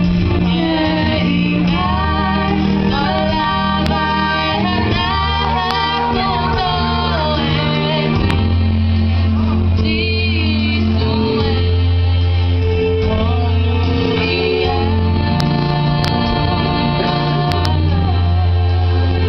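Two women singing a song with microphones over electronic keyboard accompaniment with long held bass notes, amplified through a PA system.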